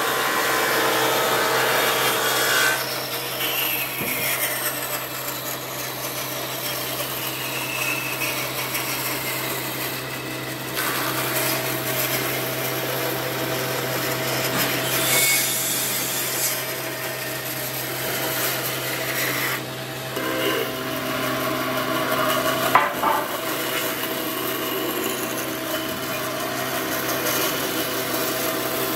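Bandsaw running with a steady motor hum while its blade cuts a thick wooden board along a curve, a continuous hiss of the blade through the wood. One sharp click about three-quarters of the way through.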